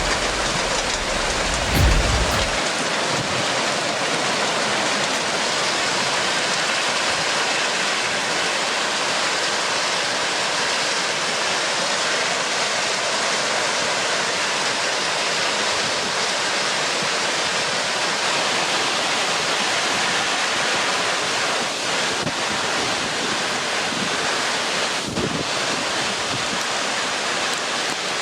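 Heavy rain pouring steadily in a thunderstorm, with a low rumble in the first couple of seconds.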